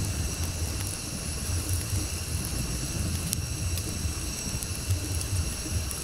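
Wood campfire burning, with a few faint crackles and snaps over a steady low rumble and a high, steady insect chorus.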